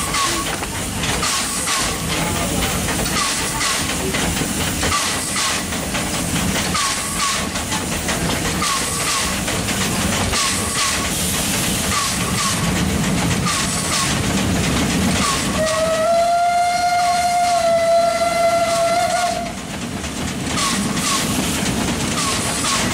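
Small steam locomotive running, its exhaust chuffing in a steady rhythm with a short squeak about once a second. About sixteen seconds in, its steam whistle sounds one long, steady blast of about three and a half seconds.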